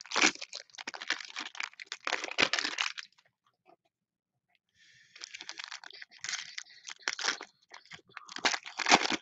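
Foil wrapper of a trading-card pack crinkling and crackling as it is torn open and handled, in two spells of rustling with a short pause about three seconds in.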